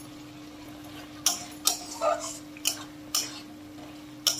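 Flat metal spatula clanking and scraping against a metal kadai while stirring chopped tomatoes into a spice masala. It gives about six sharp knocks at irregular intervals starting a little over a second in, over a steady low hum.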